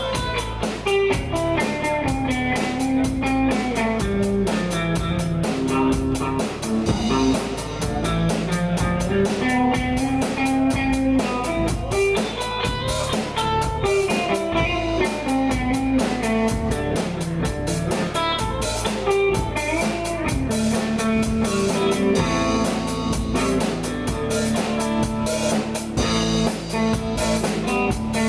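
Live band music: an electric guitar playing melodic lines over a drum kit keeping a steady beat with cymbals.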